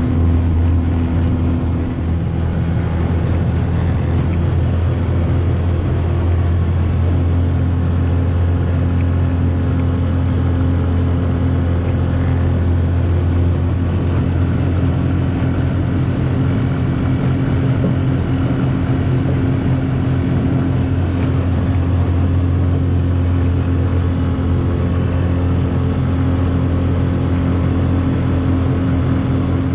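9.9 hp Selva four-stroke outboard running steadily at a constant pitch, pushing an aluminium jon boat at about 30 km/h.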